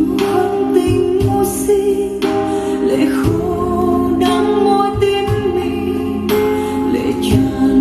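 Music plays: a song with a woman singing over instrumental accompaniment, with a regular beat.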